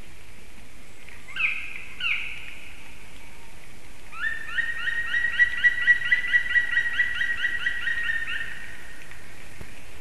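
Black woodpecker calling: two single calls, then a fast run of about twenty ringing notes at roughly five a second, lasting about four seconds.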